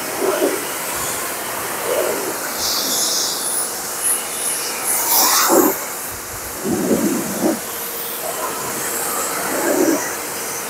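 Pressure washer spraying a steady jet of water, rinsing soap foam off a car's bodywork, the hiss swelling and easing as the spray moves across the panels.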